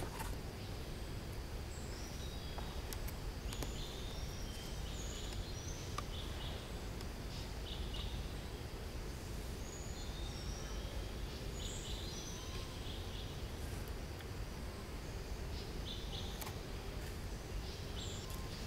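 Outdoor woodland ambience: scattered short, high-pitched chirps over a steady low rumble.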